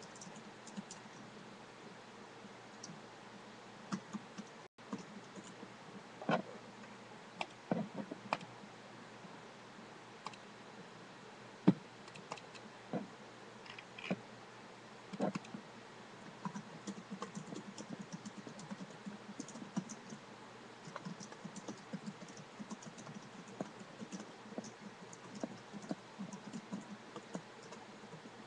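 Typing on a computer keyboard, with mouse clicks. Scattered, louder keystrokes in the first half give way to quicker, steadier typing in the second half.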